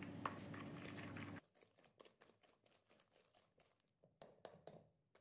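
Faint ticks and scrapes of a wire whisk beating thick butter cookie dough in a stainless steel bowl, a little louder near the end. A steady low hum cuts off abruptly about a second and a half in.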